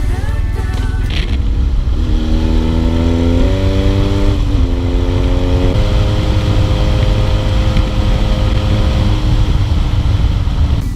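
BMW R1200GS Adventure's boxer-twin engine pulling through the gears, its pitch climbing in each gear and stepping at the shifts, then running steady from about six seconds in, over a heavy low rumble of wind and road.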